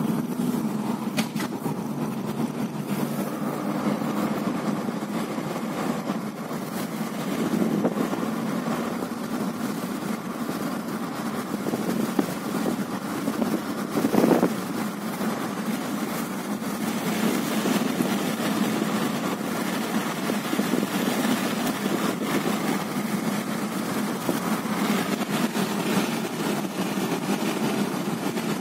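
Car engine and road noise heard from inside the cabin of a moving car: a steady low running sound, with a brief louder swell about halfway through.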